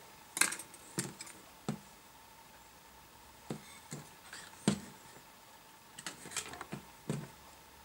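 Light clicks and taps of crocodile clips and thin component leads being handled and clipped onto a small converter board, about ten separate ticks spread out with pauses between them.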